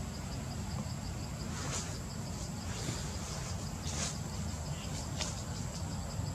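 Insects calling steadily: a fast pulsing chirp, about five a second, with a steady high whine, over a low steady rumble. A few short rustles or clicks come through near the middle.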